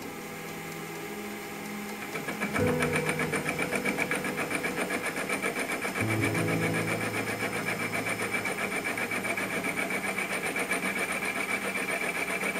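Milling machine with an end mill cutting a solid aluminium block: a fast, even pulsing chatter over a steady high whine, growing louder about two seconds in as the cutter bites in.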